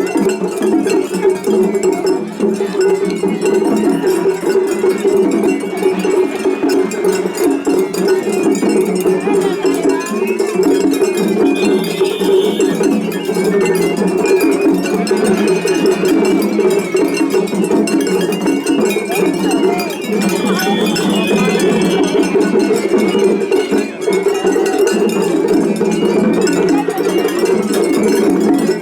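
Several Japanese festival hayashi ensembles playing at once in a seriai clash, with continuous rapid clanging of small hand gongs and drumming. A few short high bamboo-flute notes sound over the din about twelve and twenty-one seconds in.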